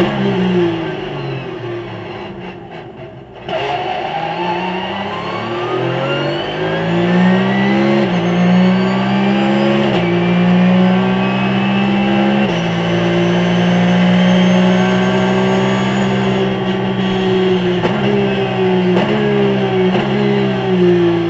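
Race car engine heard from inside the cabin on track. It drops away off the throttle for a few seconds, then comes back on power about three and a half seconds in. From there it climbs and falls sharply several times as it is shifted up through the gears under hard acceleration.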